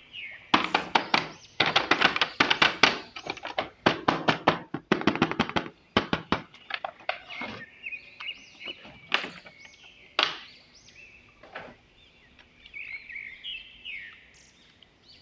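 Hard plastic clicking and rattling as toys and packaging are handled: rapid clicks for about the first six seconds, then sparser knocks, with faint high chirps near the middle and again near the end.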